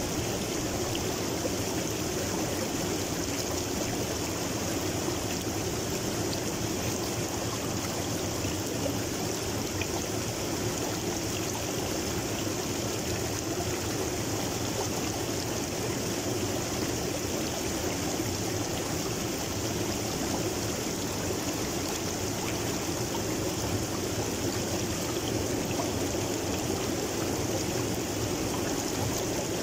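River water flowing over rocks and riffles, a steady, unbroken rush and babble of moving water.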